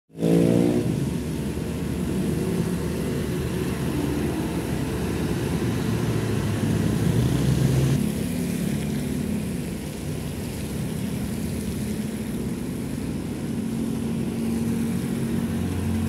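Road traffic passing on a wet road: the diesel engine of a bulldozer-type heavy machine running, with motorcycles going by about halfway through and a big truck's diesel engine coming closer near the end.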